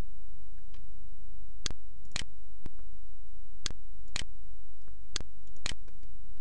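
Sharp clicks, falling roughly every half second with some beats skipped or fainter, over a steady low hum.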